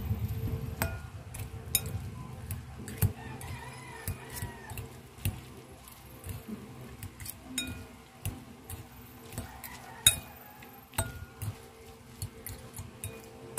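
A utensil clinking and tapping against a dish while instant noodles are mixed: irregular sharp clinks about once a second, some ringing briefly, the loudest about ten seconds in.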